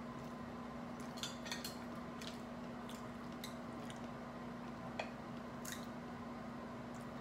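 Scattered small clicks and cracks of crab and shrimp shells being peeled and broken apart by hand, the sharpest about five seconds in, over a steady low hum.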